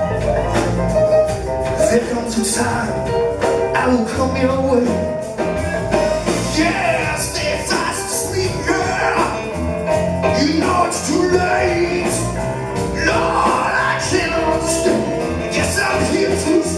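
A live rock band plays a full arrangement of drums, bass, electric guitar and keyboard, with two men singing lead into handheld microphones. The vocals come in more strongly about six seconds in, over a steady beat. It is heard from out in the hall's audience.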